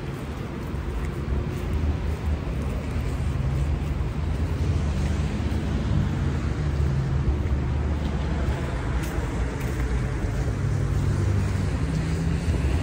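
Road traffic: a vehicle engine's low, steady hum over a constant wash of road noise, the hum growing stronger a few seconds in.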